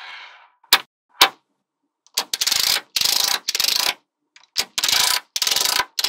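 Small magnetic balls clicking as they snap together: a few single sharp clicks, then about two seconds in, five rattling runs of about half a second each, many balls clicking at once.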